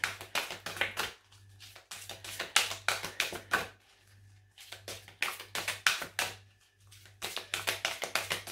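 Oracle cards being shuffled by hand: four bursts of quick card flicks and taps with short lulls between, over a low steady hum.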